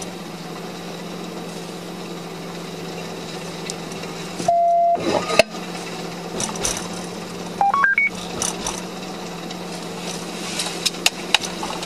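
Police radio tones over a steady low hum: one held beep about four and a half seconds in, then a quick run of four short beeps rising in pitch around eight seconds in.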